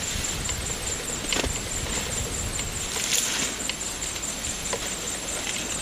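Steady outdoor background hiss with a few faint crackles and snaps scattered through it.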